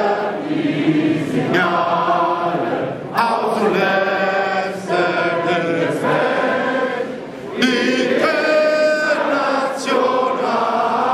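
A large crowd singing together in unison, many mixed voices, in sung phrases with short breaks between them every two to three seconds.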